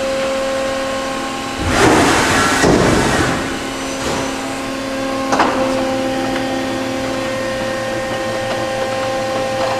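Okuma & Howa Millac 630H CNC horizontal machining center running with a steady hum of several held tones as its tool carousels shuffle tools. About two seconds in comes a louder rushing, clattering burst lasting about a second and a half, and a sharp clunk follows about five and a half seconds in.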